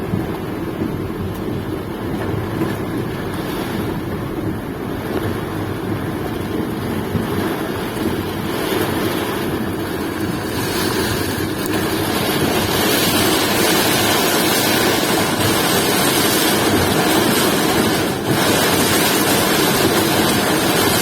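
Windy rainstorm: wind rumbling on the microphone over a steady rush of rain, the hiss growing louder about halfway through.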